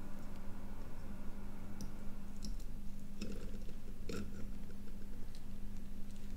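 Scattered light clicks and taps as a small circuit board and a soldering iron are handled during hand soldering, over a steady low electrical hum.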